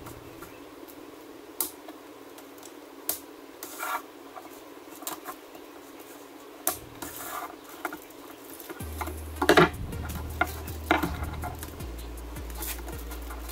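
Scattered clicks and small rattles of plastic zip ties being pulled tight and their ends snipped with scissors, against a metal wreath frame wrapped in LED rope light.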